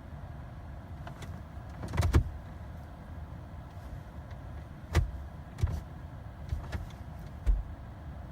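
Several sharp clicks and knocks inside a car cabin over a steady low rumble: a pair about two seconds in, then four or five more in the second half.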